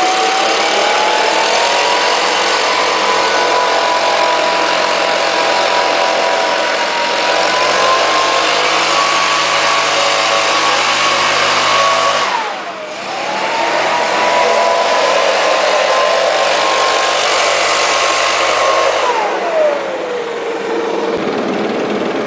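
Stihl BR550 backpack leaf blower's petrol engine revving up to full throttle and running high and steady. About twelve seconds in it drops briefly and revs back up, then falls back to idle near the end.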